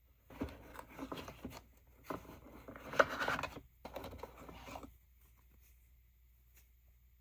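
Packaging being opened and handled: three stretches of scratching and tearing, with a sharp click about three seconds in. The last couple of seconds are quiet.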